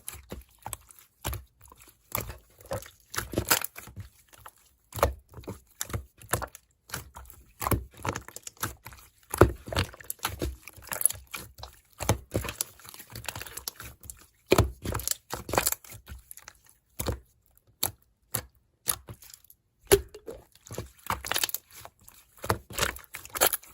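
Slime being pressed and squished by hand, making irregular sticky pops and crackles.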